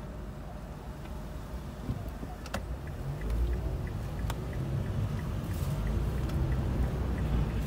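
Low rumble of a moving road vehicle, heard from on board, growing louder about three seconds in, with a faint rapid ticking and two sharp knocks.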